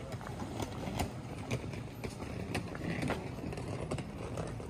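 Footsteps on stone paving at an even walking pace, a sharp step about every half second over a steady low outdoor rumble.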